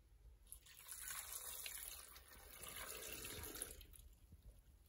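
Warm milk being poured into a blender jar, a faint liquid pour in two stretches with a short break between.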